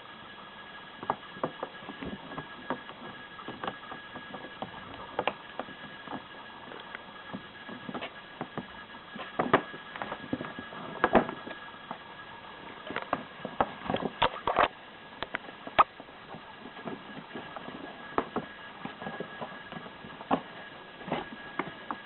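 Scattered, irregular light taps and clicks, with a few louder knocks around the middle, over a faint steady high whine.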